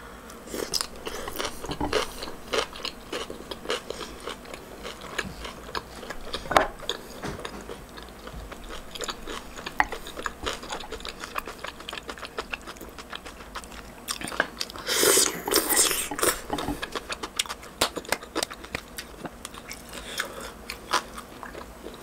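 Close-up mukbang chewing of grilled LA galbi beef short ribs and kimchi: many small wet clicks and smacks of the mouth, with a louder crunchy stretch about fifteen seconds in.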